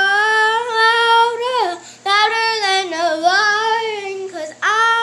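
A young girl singing alone with no backing music, holding long notes that slide in pitch, with two short breaks for breath: one about two seconds in and one near the end.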